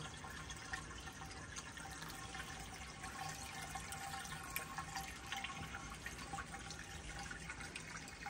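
Water running steadily from a PVC pipe into the swirl pan of a homemade gold and black-sand separator, with small drips and splashes.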